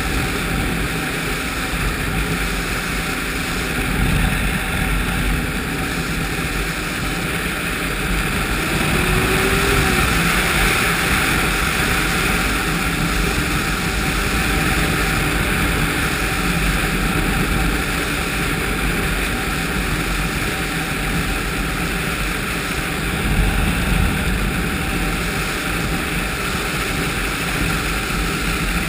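Ski-Doo 1200 4-TEC snowmobile's four-stroke three-cylinder engine running under way at speed, heard through heavy wind rush on a helmet-mounted camera. The engine note swells slightly about a third of the way in and peaks briefly near the end.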